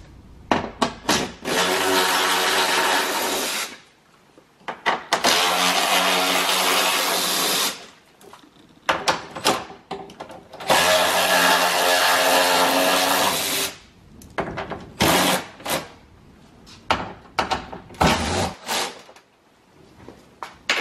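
Cordless power driver with a socket spinning out the 10 mm bolts that hold a car door's window regulator, in three runs of two to three seconds each. Short clicks and knocks of the socket and bolts come between the runs and near the end.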